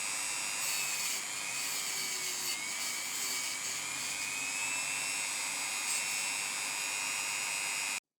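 Small high-speed rotary tool spinning a steel wire brush against a stripped diecast zinc casting: a steady high whine that wavers slightly in pitch over a scratchy hiss, cutting off suddenly just before the end.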